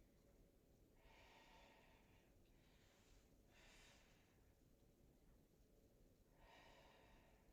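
Near silence with a person's faint breathing: about four soft breaths in and out during a stretch.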